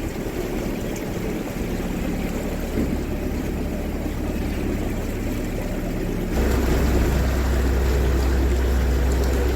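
Narrowboat's diesel engine running steadily under way, becoming suddenly louder about six seconds in.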